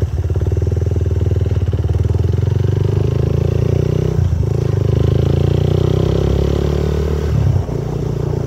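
Motorcycle engine running steadily while riding, heard from on the bike. The engine picks up right at the start, with brief dips in its note about four seconds in and again near the end.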